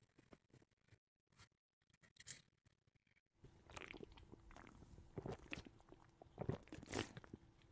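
Very quiet: a few faint clicks, then from about halfway in a string of soft swallowing gulps as a drink is taken from a plastic bottle.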